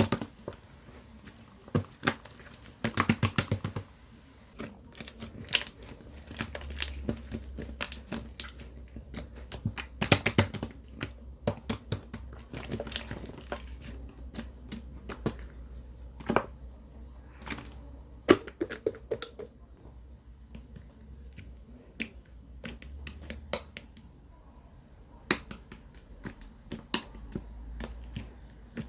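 Irregular small clicks, taps and knocks of objects being handled close to the microphone, with a quick rattle of clicks about three seconds in.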